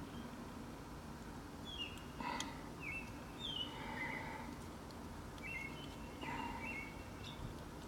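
Birds chirping in short, high notes scattered through a faint, steady background noise, with one small click about two and a half seconds in.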